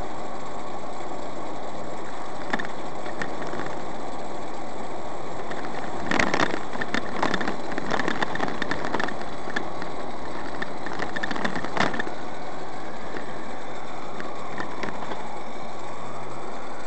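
Steady road and engine noise of a car driving on a highway, picked up by a dashcam, with a run of rattles and knocks from about six to twelve seconds in. Near the end a faint siren begins to rise and fall.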